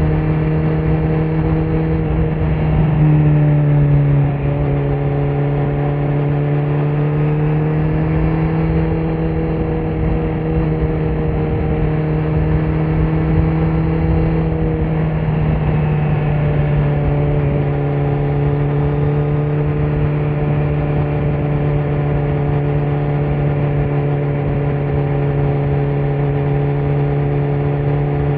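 Kawasaki Z900's inline-four engine, breathing through a Leo Vince muffler on stock headers with no dB killer, running at a fairly steady speed with an even exhaust note. About three seconds in it gets briefly louder as the revs change.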